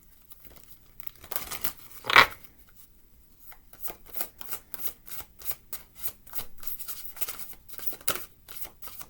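A deck of cards being shuffled by hand: a fast run of short papery flicks and riffles, with one louder snap about two seconds in.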